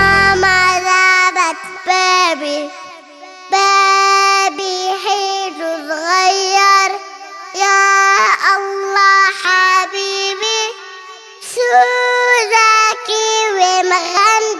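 A young girl singing a children's song in Arabic, with long held notes; the low beat under her drops out under a second in, leaving the voice nearly alone.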